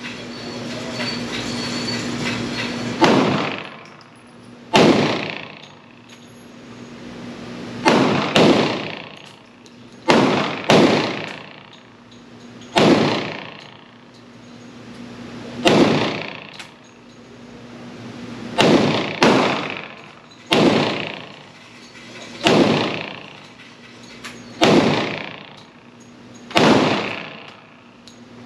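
Glock 40 long-slide pistol in 10mm Auto fired one shot at a time, about fourteen shots a second or three apart, some in quick pairs. Each report rings on in the echo of the indoor range.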